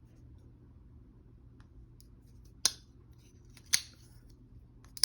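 Spyderco Para 3 folding knife's compression lock clicking as the blade is snapped open and shut: three sharp metallic clicks about a second apart.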